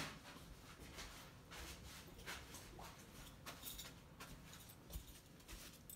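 Near silence: room tone with a few faint scattered clicks and rustles.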